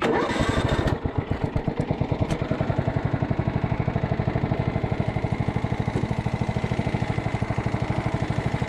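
Craftsman riding lawn mower engine starting up with about a second of loud noise, then running with a steady, even beat.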